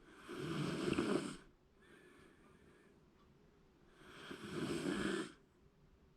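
Shiba Inu snoring in its sleep: two loud snores, each a little over a second long and about four seconds apart, with a faint breath between them.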